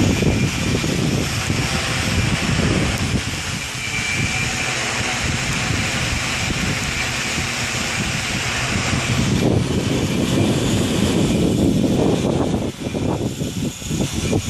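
Heavy wind buffeting the microphone over the steady whine of a hexacopter's electric motors and propellers. The gusts turn choppy near the end.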